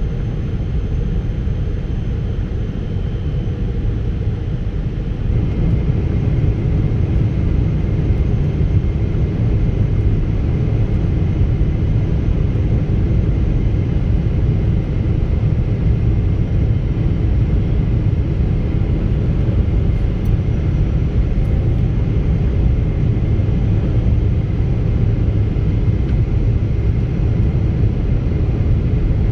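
Cabin noise of a Boeing 777-300ER on final approach: a steady low rumble of its GE90 engines and airflow, stepping up a little about five seconds in, with a faint steady whine above it.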